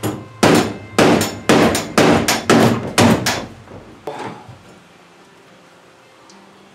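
A hand hammer strikes the bagger of a Scag Tiger Cat zero-turn mower about ten times in quick succession, roughly two blows a second, with a few lighter taps after about four seconds. The blows are meant to straighten parts bent out of shape by catching branches.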